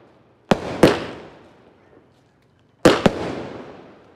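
Multi-shot fireworks cake firing: two pairs of sharp bangs about two seconds apart, each bang trailing off in an echo.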